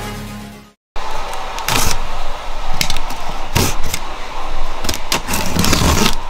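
Electronic intro music fades out in the first second and there is a moment of silence. Then a blade slits the packing tape on a cardboard box, with scraping, tearing and rustling of tape and cardboard and several sharp knocks.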